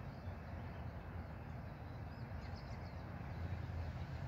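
Outdoor ambience: a steady low rumble with a few faint bird chirps about halfway through.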